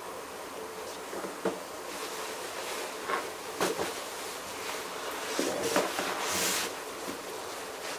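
Long cardboard tripod box being handled with gloved hands: a few light knocks as it is lifted, turned and set down, and a short scraping rustle about six and a half seconds in, over a steady background hiss.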